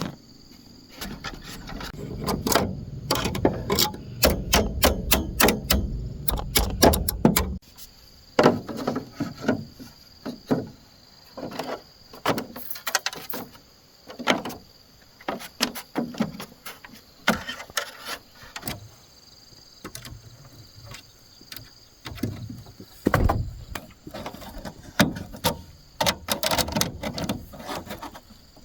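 Irregular knocks and whacks of bamboo being worked by hand: a quick run of strikes over a low rumble for the first several seconds, then scattered single knocks.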